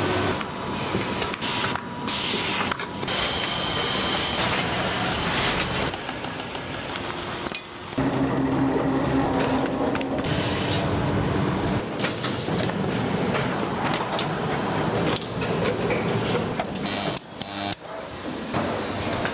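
Carton-making machinery running: loud, steady mechanical noise with knocks and clatter. The sound changes abruptly every few seconds, jumping between machines.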